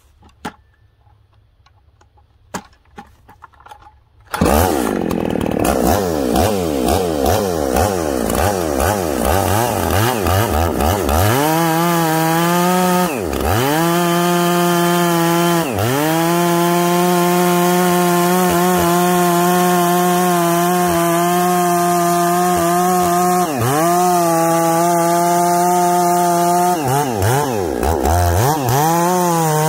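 Ported Husqvarna 288 XP two-stroke chainsaw coming up to full throttle about four seconds in and cutting through a large hardwood log. It runs at steady high revs, its pitch dipping briefly a few times as the chain loads in the wood and then recovering. The freshly hand-filed chain is pulling itself through the cut with no pressure applied.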